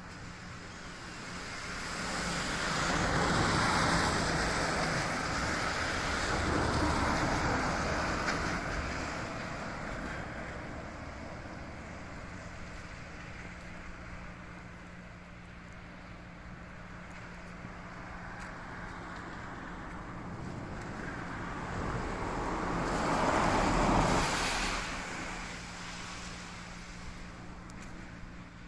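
Cars passing on a wet road in the rain, their tyres hissing on the wet surface. Two go by within the first several seconds and another near the end, over a steady rain hiss and a faint low hum.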